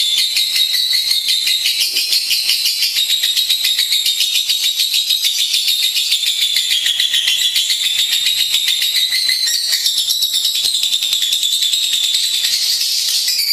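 Lovebird singing: an unbroken stream of rapid, high-pitched chattering twitter.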